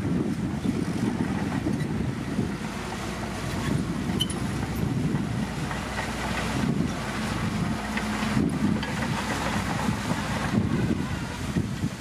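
Shantui crawler bulldozer's diesel engine running steadily under load as the dozer pushes a pile of broken rock and gravel.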